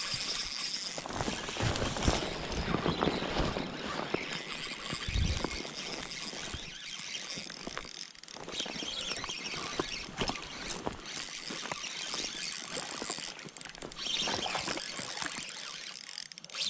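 Spinning reel working under the pull of a hooked fish: a fast, rough run of clicking and whirring from the reel's drag and gears as line goes out and is wound back in.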